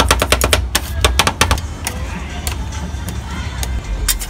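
Rapid clatter of two steel spatulas chopping ice cream on the frozen steel pan of a rolled ice cream plate, about seven strikes a second for the first second and a half, then a few scattered taps and scraping as the mix is spread thin. A steady low hum runs underneath.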